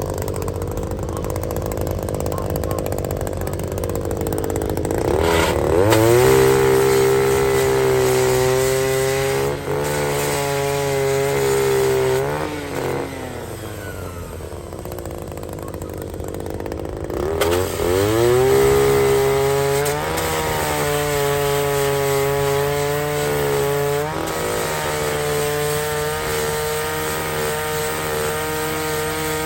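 Heavy land-clearing machinery running with a low rumble. About five seconds in, a pitched whine rises and holds steady, then sinks away around twelve seconds in. It rises again around eighteen seconds and settles to a slightly different steady pitch near twenty-four seconds.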